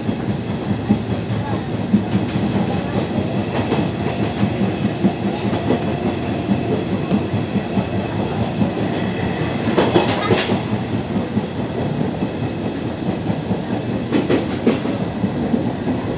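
Cabin of a Nishitetsu 2000 series electric train car running: a steady rumble with the wheels clattering over rail joints. A brief louder rattle comes about ten seconds in.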